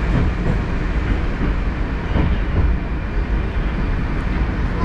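Moskva-2018 metro train in motion, heard from inside the carriage: a steady rumble of wheels and running gear on the rails, with a few faint knocks about two seconds in.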